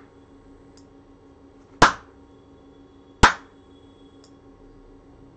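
Two sharp hand claps about a second and a half apart, clapped at a sound-sensor module to trigger a clap switch that turns on a relay-driven LED lamp.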